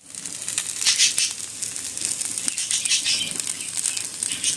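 Cut okra sizzling and crackling in hot oil on a flat iron tawa, a steady hiss scattered with small pops.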